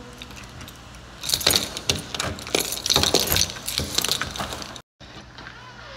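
Keys jangling on a ring while a key is worked in a Kwikset deadbolt, a few seconds of metallic clicking and rattling, cut off abruptly near the end.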